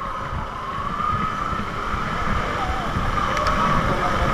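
A steady high-pitched siren-like tone that wavers slightly and grows louder, over the wind and road rumble of riding a bike.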